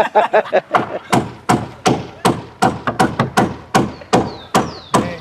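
Hammering on a wooden boat hull's planking: sharp blows repeating about three times a second.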